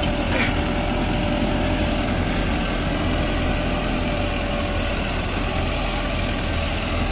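Mahindra Novo 755 DI 4WD tractor's diesel engine running steadily under load while pulling a tine cultivator through the soil.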